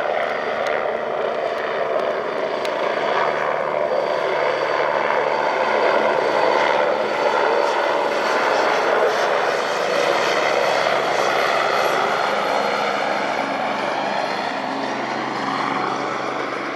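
Agusta A109E twin-turbine helicopter in flight: steady rotor and turbine noise with a faint high whine, growing louder toward the middle and easing slightly near the end.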